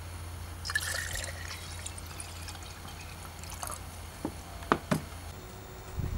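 Water from a plastic bottle dribbling and dripping into glass jars, a short splash about a second in, then a few sharp clicks and knocks about four to five seconds in.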